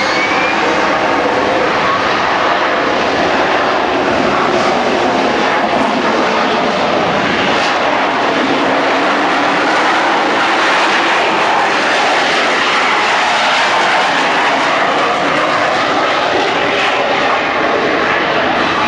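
AV-8B Harrier II's Pegasus turbofan at high power for takeoff and climb-out. A rising engine whine in the first half-second gives way to a loud, steady jet roar.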